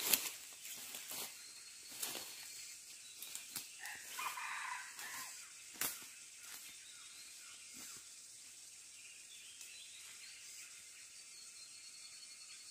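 Red junglefowl flapping its wings in sharp bursts, with a short squawking call about four seconds in, over footsteps crunching through dry leaves; the bursts die away after about eight seconds.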